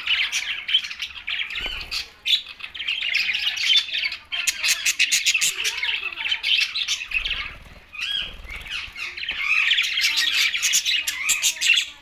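Several budgerigars chattering and chirping together in quick, dense calls, with a brief lull about two-thirds of the way through.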